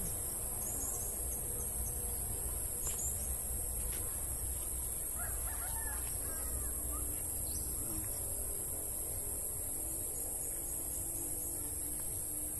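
Rural outdoor ambience: a steady high-pitched drone throughout, with a few bird calls, the clearest about five to seven seconds in.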